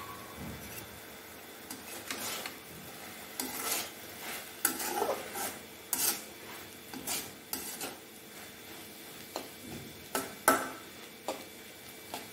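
A metal spatula stirring and tossing water spinach in a metal kadai, with irregular scrapes and clinks of metal on the pan.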